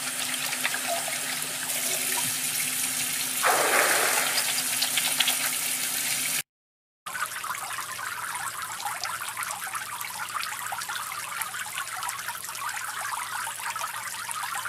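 Stock water sound effects being previewed: a steady wash of splashing water that swells about three and a half seconds in and cuts off abruptly, then, after a brief silence, a second water recording with a dense fine crackle that also stops sharply.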